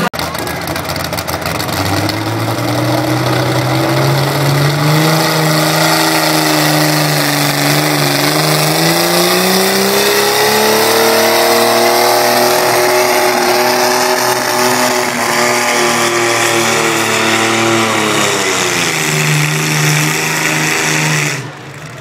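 Modified diesel farm tractor at full throttle pulling a weight-transfer sled, the engine note climbing, sagging and climbing again as it labours under the load. It eases back near the end, then drops off abruptly.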